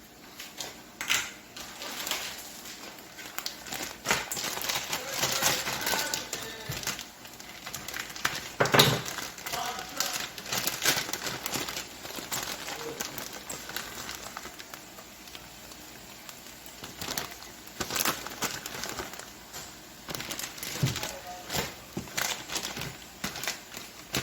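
Kitchen handling noises while cheese is added to a pan of cooked-down broccoli and spinach: irregular clicks and knocks mixed with crinkling, like a plastic cheese bag being handled, and utensils against the pan.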